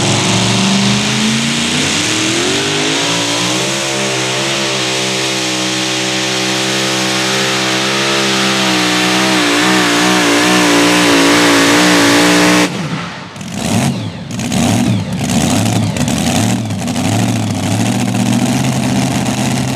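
Supercharged engine of a super modified two-wheel-drive pulling truck at full throttle under load. It revs up over the first few seconds, holds high revs with some wavering, then is cut abruptly about two-thirds of the way through and drops to an uneven, lower-pitched running as the pull ends.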